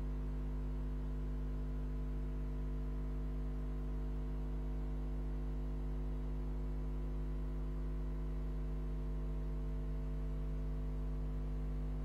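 Steady electrical mains hum: a constant low buzz with a stack of even overtones that does not change at all.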